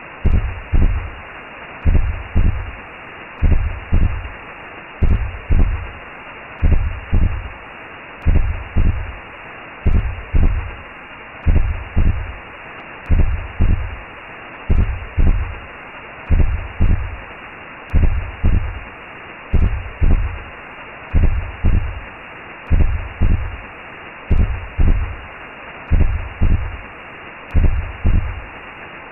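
Recreated womb sound: a low heartbeat, a double thump about every second and a half, over a steady whooshing hiss.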